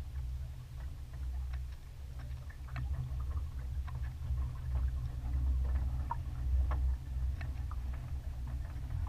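Wind buffeting the camera microphone on a sailboat under way, a low uneven rumble, with scattered light ticks and taps on and off throughout.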